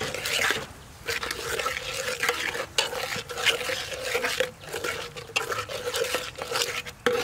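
Metal ladle stirring and scraping a chilli paste frying in oil in an aluminium pot, in a run of irregular scrapes against the pot bottom.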